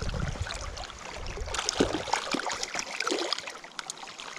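Creek water running, with small irregular splashes from a hooked small cutthroat trout thrashing at the surface as it is drawn in by hand.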